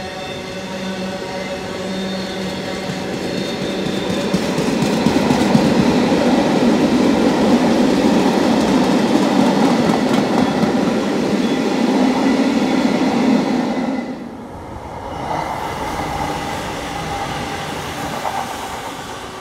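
Long rake of covered steel-coil freight wagons, behind a Class 66 diesel, rolling past: steel wheels rumbling and clattering over the rail joints, with a thin steady whine at first. The sound swells to its loudest before the tail passes. About 14 s in, it cuts to the quieter, humming approach of a Class 166 diesel multiple unit.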